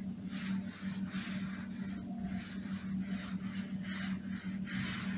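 An applicator pad rubbing wood stain onto a wooden cabinet panel in repeated back-and-forth strokes, roughly two a second, each a soft scratchy swish.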